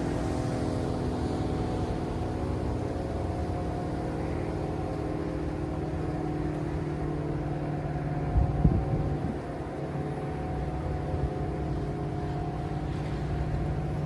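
ACA P-50 outdoor warning siren sounding a steady chord of several held tones over a low rumble, with a brief knock or buffet about two-thirds of the way through.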